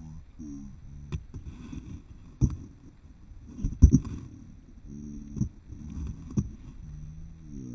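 Large cardboard box being handled and tipped on snow: a run of knocks and thumps, the loudest about four seconds in, with short low hums between them.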